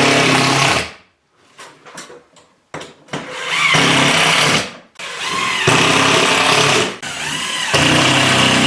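Power drill driving 2-inch screws to fasten a bracket into the ceiling, running in four short bursts whose pitch winds up and down.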